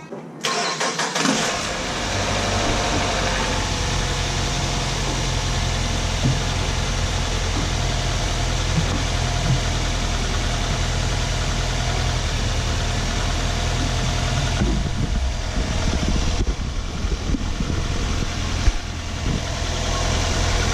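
A 2003 Nissan Altima's 2.5-litre four-cylinder engine is cranked by the starter and catches about a second and a half in. It then idles steadily, just refilled with fresh oil.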